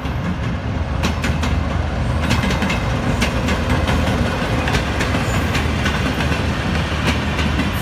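Pakistan Railways GEU-40 diesel-electric locomotive passing close with a steady low engine drone. From about a second in, the wheels click and clatter sharply over the rail joints as the locomotive and then the coaches go by.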